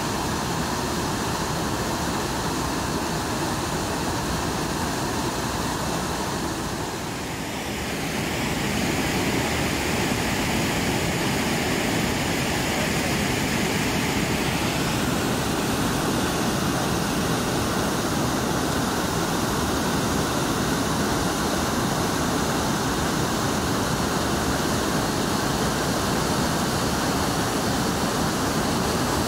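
Steady rushing of river rapids, with a brighter hiss for several seconds partway through.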